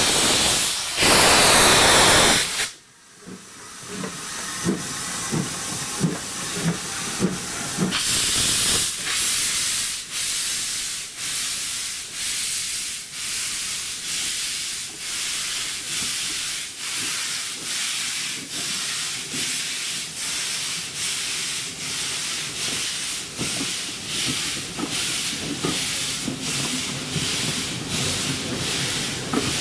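Steam locomotive: a loud hiss of steam cuts off suddenly about three seconds in, then the exhaust chuffs at a steady beat, about one and a half beats a second.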